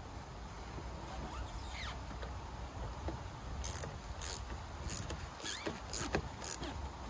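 Ratchet spanner on the battery's negative terminal clamp nut: several short ratcheting strokes, about two a second, through the second half, with a couple of faint rising squeaks before them.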